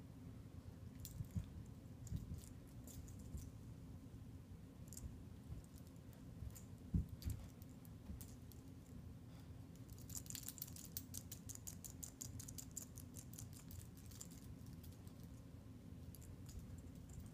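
Faint scattered clicks and scratches of a young German Shepherd puppy's paws and claws on carpet as it pounces at and paws the floor. A fast run of scratching comes about ten seconds in and lasts about five seconds, with a single dull thump about seven seconds in. A steady low room hum runs underneath.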